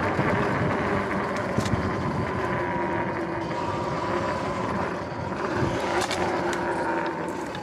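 Sur-Ron X electric dirt bike riding along a concrete sidewalk: the motor's whine holds a fairly steady pitch over tyre and wind noise, with a couple of sharp knocks from bumps along the way.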